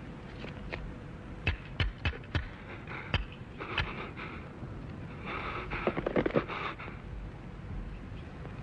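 A ventriloquist dummy's jaw being worked open and shut by hand, clacking: a handful of separate sharp clicks, then two short rattling runs of rapid clicks about halfway through.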